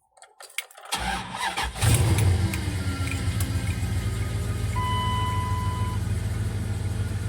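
A 2000 Dodge Durango's engine cranking briefly and catching, then settling into a steady idle. A single steady electronic chime sounds for about a second midway.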